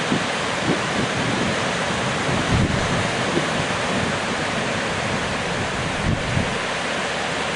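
Steady rush of ocean surf, with wind buffeting the microphone in irregular low thumps.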